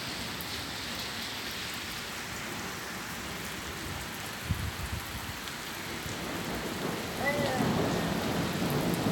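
Steady rain falling during a thunderstorm, with a short low thump about four and a half seconds in and thunder rumbling more strongly in the last two seconds.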